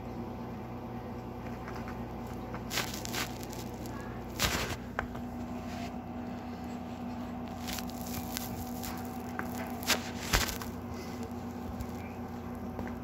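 A cat's paws stepping and pawing on a woven rug close to the microphone: a handful of short taps and rustles, the loudest about four and a half seconds in and around ten seconds in, over a steady low hum.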